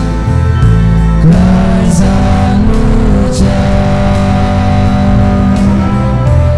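Mixed youth choir singing a Christian song with keyboard and electric guitar accompaniment, holding long notes and sliding up into new ones a little over a second in and again near the end.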